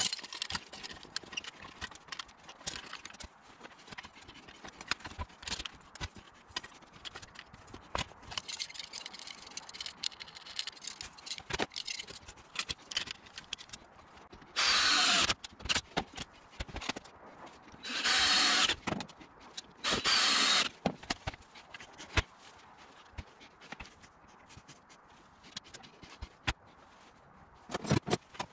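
Knocks and clicks of timber being handled and clamped into a frame, with a cordless drill run in three short bursts of about a second each past the middle and once more briefly near the end.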